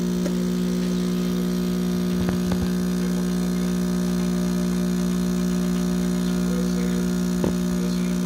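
CRM3605+ espresso machine's vibration pump humming steadily while pulling an espresso shot, with a few faint clicks.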